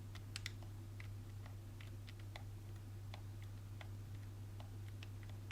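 PS5 DualSense controller buttons being pressed and released by hand: faint, irregular small plastic clicks, about two a second, over a steady low hum.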